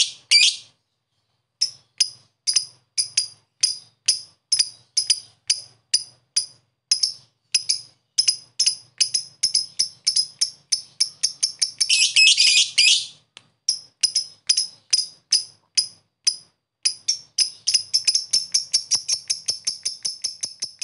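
Masked lovebird calling in a series of short, sharp, high chirps about two a second (the 'ngetik' call). About twelve seconds in, the chirps break into a dense trill lasting about a second (the 'ngekek'). From about eighteen seconds on, they speed up into a rapid run that merges into a trill.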